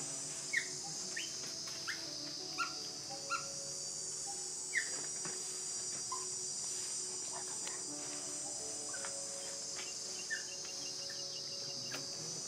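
Steady, high-pitched chorus of insects, with about ten short, sharp chirps scattered through it and a faint low steady hum underneath.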